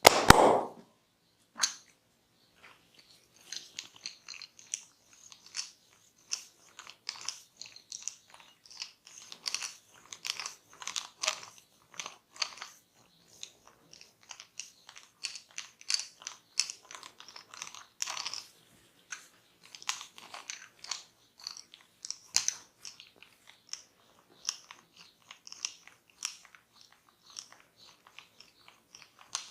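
Close-miked massage sounds: a barber's hands rubbing and scratching over hair and skin, making a dense run of small crunchy crackles. There is a single loud thump at the very start.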